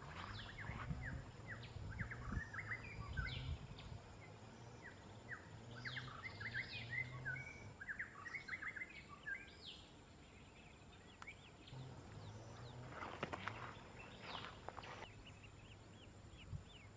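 Outdoor ambience of many short, high bird chirps over a low rumble, with a louder burst of noise about thirteen seconds in.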